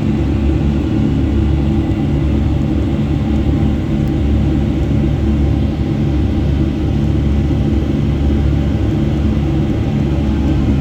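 Steady drone and rumble of a Boeing 757-200's jet engines and airflow, heard inside the passenger cabin during takeoff, loud and even throughout, with a few steady low hums under the rumble.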